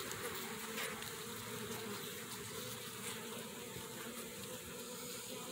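Honeybees buzzing steadily in an opened nuc hive, a continuous hum from the colony crowded on the frames.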